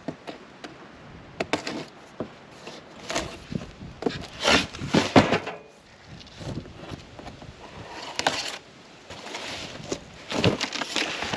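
Cardboard box and packing being handled and pulled open: irregular rustling and scraping with a few sharp knocks, loudest around four to five seconds in and again near the end.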